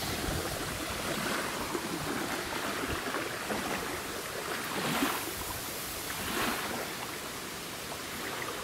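Steady rush of wind and choppy river water lapping at the bank, with two brief swells of noise about five and six and a half seconds in.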